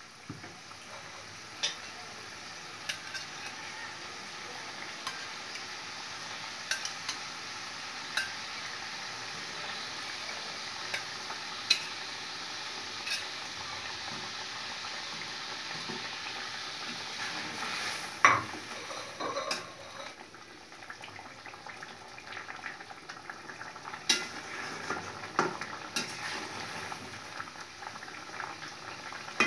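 Coconut-milk curry gravy simmering with a steady hiss in a metal karahi, while a spatula stirs and scrapes with frequent clicks against the pan and shrimp koftas are slid in from a plate. A louder clatter about 18 seconds in.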